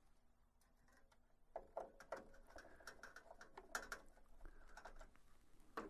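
Faint scattered clicks and scraping of a hand screwdriver turning the mounting screw into the plastic ink supply station of an HP Designjet 500/800 printer.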